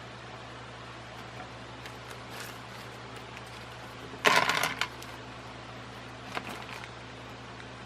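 Small hard parts of a ceiling fan being handled: a short clattering rattle about four seconds in, then a few lighter clicks, over a steady low hum.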